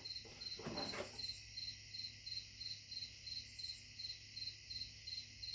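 Cricket chirping steadily, faint, about four chirps a second. A brief handling noise about a second in.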